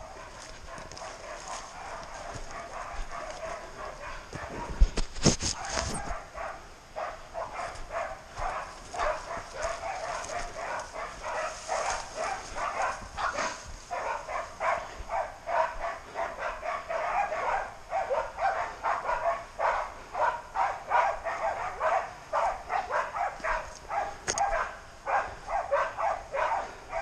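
Pig dogs barking in a rapid, continuous run, the barks coming thicker and louder as it goes: dogs bailing a pig, holding it at bay. A few sharp knocks about five seconds in.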